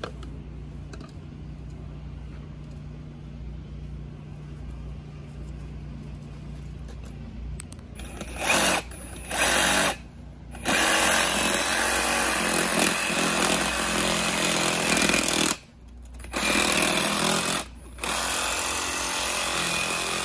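A handheld power tool running in bursts, starting and stopping about five times from eight seconds in, with the longest run lasting several seconds.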